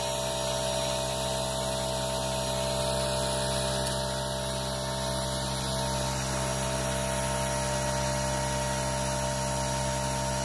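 Red-and-black canister blower (a shop-vac-style unit used as an air blower) running steadily, pushing air through the pool's plumbing line to drive the antifreeze through during winterizing.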